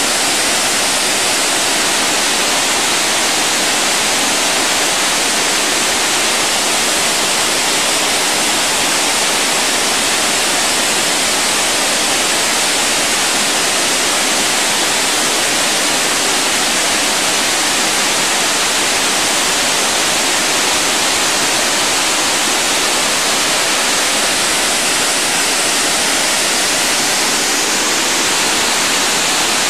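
Rushing water of a waterfall or cascade: a loud, steady, unbroken hiss.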